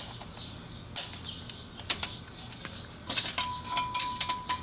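Hand tools clicking and clinking on metal as bolts on the Volkswagen Jetta's clutch are tightened in a numbered sequence, the clicks coming faster about three seconds in, with a steady beep starting shortly after.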